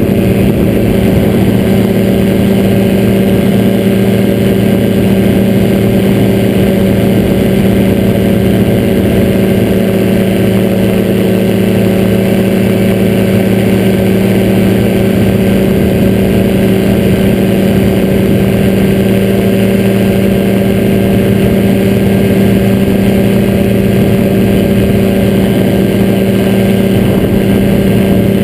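Engine and propeller of a weight-shift microlight trike droning at a constant pitch in cruising flight, with no change in throttle.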